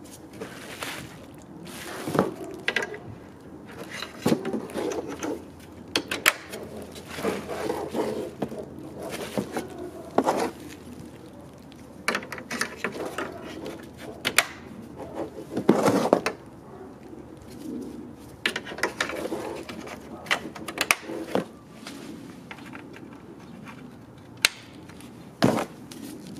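Irregular clicks, taps and clatter of hands working on a plastic truck grille, handling small screws and an LED wiring harness with its plug connectors.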